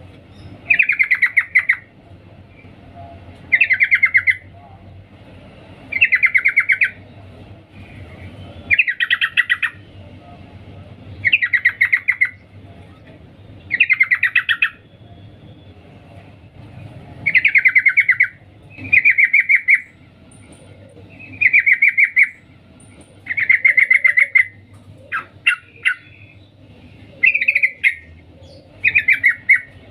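Female yellow-vented bulbul (trucukan) giving its 'cuk cuk' call to a male: short, rapid chattering bursts of under a second each, repeated every two to three seconds. A few shorter clipped notes come near the end.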